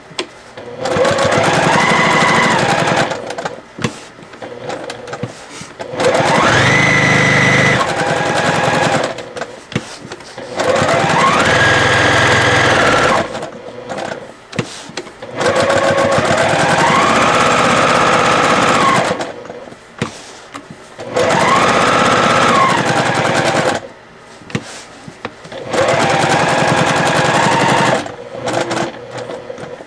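A basic electric straight-stitch sewing machine stitching in about six short runs of two to three seconds each. In each run the motor whines up to speed, holds, and winds down, with pauses between runs while the fabric is turned to follow the curve.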